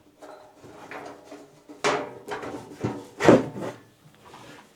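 Panel of an NZXT H5 Flow PC case being opened by hand: scraping and rubbing handling noises, with two stronger scrapes about two and three seconds in, the second the loudest.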